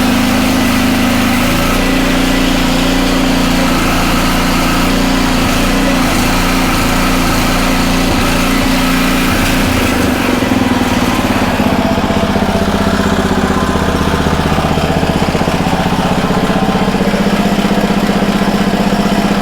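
Honda HRC216 lawn mower's single-cylinder engine running steadily with no blade engaged, which the owner says is running a little fast. About eleven seconds in its pitch drops and it settles at a lower, steady speed.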